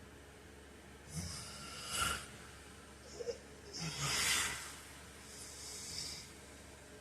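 A sleeping man snoring and breathing noisily. A rough breath about a second in ends in a sharp click, two quick clicks follow, then comes a long loud breath in the middle and a softer one near the end.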